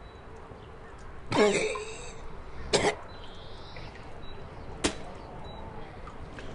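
A man coughing after a swig from a bottle. First comes a longer, voiced cough about a second in, then two short, sharp coughs about two seconds apart.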